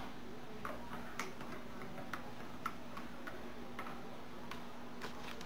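Metal spoon stirring in a ceramic mug, light clinks against the side about twice a second, a few with a short ring, over a steady low hum.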